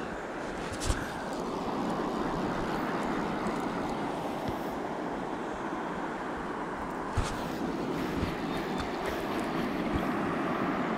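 Steady rush of river water flowing around a wading angler, with a couple of soft knocks, about a second in and again about seven seconds in.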